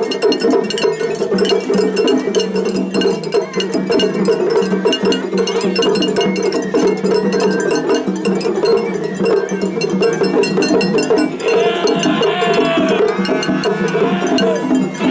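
Japanese festival hayashi played by several groups at once in a seriai face-off: taiko drums and a clanging atarigane hand gong beating rapidly under sustained flute tones. Wavering higher pitched lines come to the fore about two thirds of the way through.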